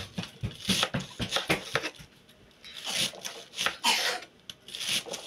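Sharp knife slicing a red cabbage into thin shreds on a wooden cutting board: quick cuts, about five a second, with a short pause about two seconds in.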